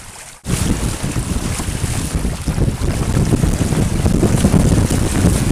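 Loud wind buffeting the microphone, with water rushing and spraying along the hull of a Hobie trimaran sailing fast through chop. It starts abruptly about half a second in, after a brief softer splash of water at the bow.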